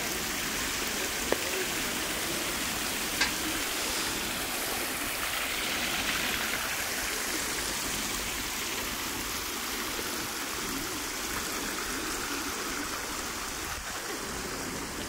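Steady rush of running water in shallow water-plaza pools around stepping stones, with two short clicks in the first few seconds.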